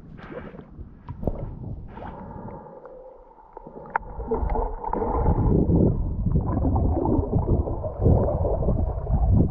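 Water sloshing and gurgling around an action camera at the surface, then the muffled rush and bubbling of water on the camera once it is underwater, growing louder about halfway through. A single sharp tick comes about four seconds in.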